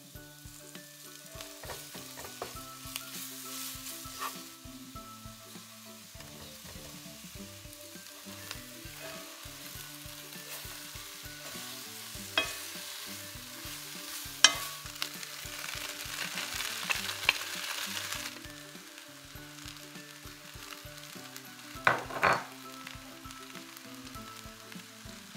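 Vegetables sizzling in oil in a frying pan, stirred and scraped with a wooden spoon, with a few sharp clacks about halfway through and a double clack near the end.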